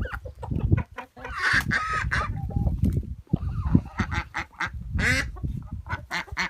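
Backyard ducks and chickens calling, with many short calls overlapping and louder calls about one and a half seconds in and again around five seconds.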